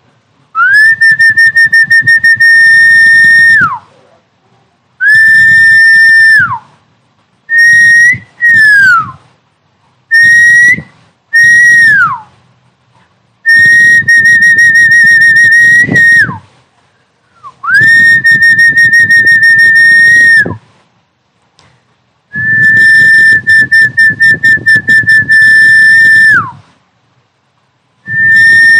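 Snakehead-fish calling whistle, played as an MP3 lure sound: about ten loud, high whistles, each held from under a second to about four seconds with short gaps. Most drop sharply in pitch at the end, and a few have a warble.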